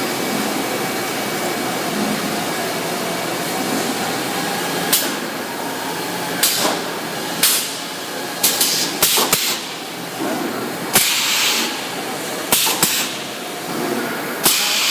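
Radiator spot-welding machine at work: from about a third of the way in, a run of short, sharp hissing bursts about once a second, one longer near the end, over a steady machine noise.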